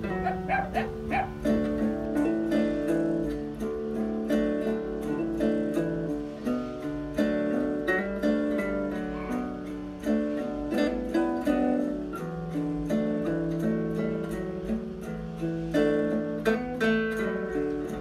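Background music played on plucked-string instruments: a steady run of plucked notes and chords.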